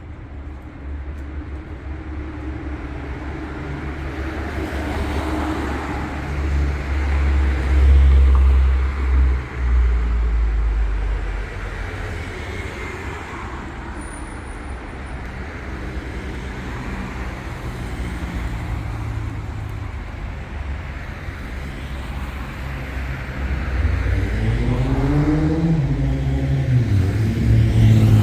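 City street traffic: motor vehicles running and passing close by, with a deep rumble that swells and fades in the first half. Near the end, one engine rises in pitch as it accelerates, then drops back.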